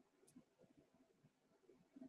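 Near silence: faint room tone with a slight tick about a quarter second in.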